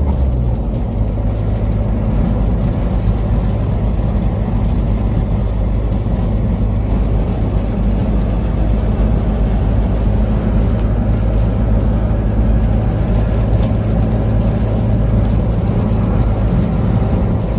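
Inside a moving pickup truck's cab: steady low engine and road rumble from driving over an icy, snow-covered road.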